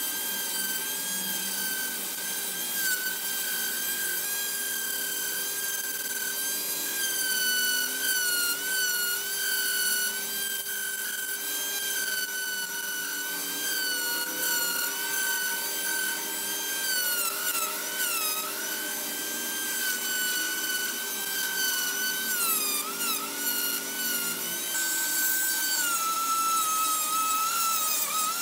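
Handheld rotary tool running at high speed with a steady whine, its abrasive bit grinding and rubbing on the steel hand clamp. The whine dips in pitch several times in the second half as the bit is pressed into the metal, and settles lower near the end.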